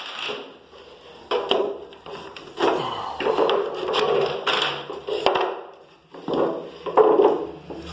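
White wooden bed slats and panels being handled, knocking and clattering against each other and the tile floor in several separate bursts.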